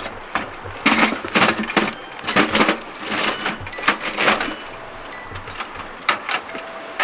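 Split firewood logs knocking and scraping against a small stainless-steel wood stove's firebox as they are pushed in, in a run of clattering bursts, then the stove's metal door clanking shut with two sharp knocks about six seconds in.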